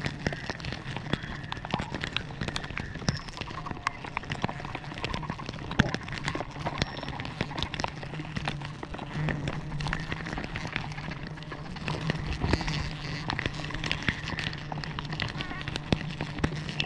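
Swarm of giant honey bees (Apis dorsata) buzzing close around, a steady low hum, with frequent sharp clicks and taps scattered through it.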